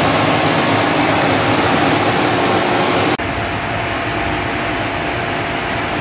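Britânia Mega Turbo 130 W electric fan running at speed: a steady rushing of air with a faint motor hum. About three seconds in, the sound dips for a moment and goes on slightly quieter and duller.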